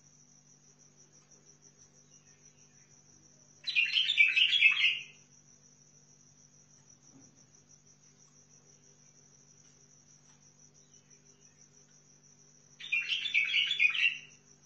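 White-eared bulbul singing two short warbling phrases, each about a second and a half long, one about four seconds in and one near the end. A steady, high, rapidly pulsing trill runs underneath.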